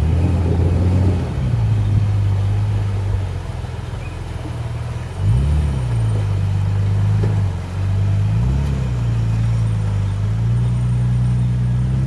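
Four-wheel-drive wagon's engine running under load as it wades through a flowing river, its revs rising and falling twice, about five and eight seconds in, over the steady rush of the water.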